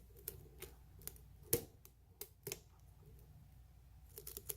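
Faint, irregular small metallic clicks and ticks of a lock pick working the pins of a challenge lock while it is being single-pin picked, the loudest about a second and a half in and a few quick ones near the end.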